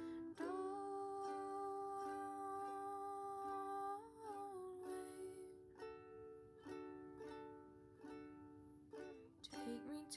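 Ukulele song: a long held vocal note over the first four seconds, wavering and sliding near its end, then ukulele chords plucked at an even pace.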